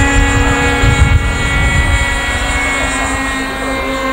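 Small engine of a radio-controlled model airplane buzzing steadily in flight, its pitch holding even, with a low rumble during the first couple of seconds.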